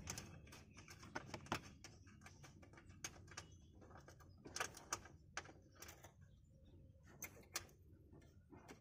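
Faint, irregular small clicks and taps of fingers handling wires and brass ring terminals against the car's sheet-metal boot panel, over low room hum.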